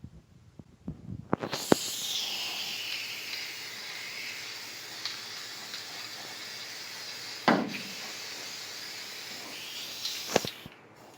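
Paint spraying onto rusty truck-bed metal: one long steady hiss of about nine seconds, with a whistle that falls in pitch as the spray opens and rises as it closes. There are light knocks as it starts, one about seven seconds in and one near the end.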